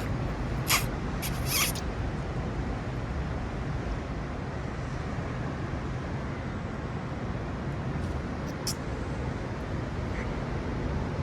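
Steady rushing noise of wind on the microphone and surf on the rocks. A few short sharp scraping clicks come in the first two seconds, and one more about eight and a half seconds in.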